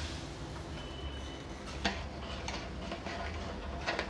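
Metal ladle stirring boiling vermicelli kheer in an aluminium kadhai, giving a few light clicks against the pan over a low steady hum.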